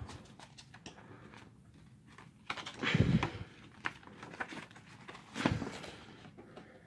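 A folded paper poster being opened out by hand: scattered rustles and crinkles of the paper, with two louder flaps of the sheet about three seconds and five and a half seconds in.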